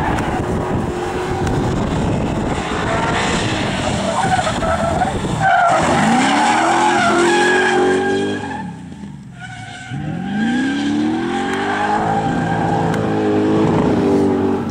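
Firenza Can Am rally car's 302 small-block Chevrolet V8 run hard, its pitch climbing steeply about six seconds in and again about ten seconds in, with a short lull between. Tyres skid as the car slides through a bend.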